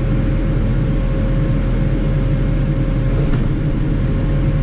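Kubota M7060 tractor's four-cylinder turbo diesel running steadily: a low, even drone with a thin steady whine over it.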